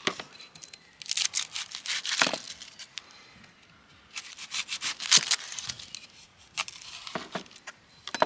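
Firebox travel chef's knife cutting vegetables on a board: two runs of quick crisp cuts, about a second in and about four seconds in, then a few single cuts.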